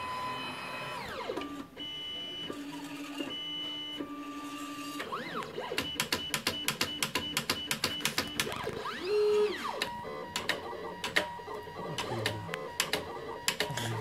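WAGO marking plotter's stepper motors whining in steady tones that glide up and down as the pen carriage speeds up and slows. From about five or six seconds in, rapid irregular clicking joins the tones as the pen works the marker strips.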